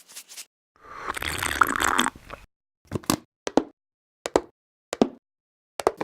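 Plastic microwave soup cup being handled: a scraping rustle about a second in, then a series of about six short, sharp plastic clicks and knocks.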